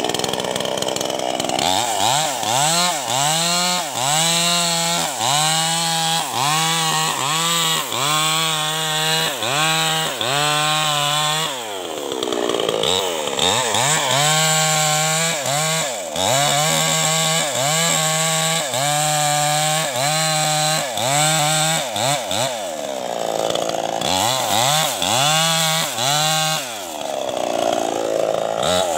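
New West 588 two-stroke chainsaw cutting into the base of a teak trunk, its engine pitch dipping and recovering in a steady rhythm, about one and a half times a second, as the chain bites. A few times the cut eases and the engine revs up and falls back freely before biting again.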